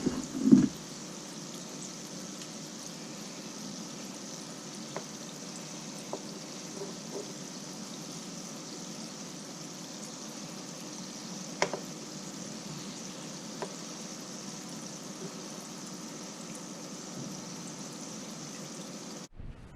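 Gulab jamun dough balls deep-frying in vegetable oil in a wok at low to medium heat: a steady bubbling sizzle, with a knock at the start and a few light clicks, and it cuts off just before the end.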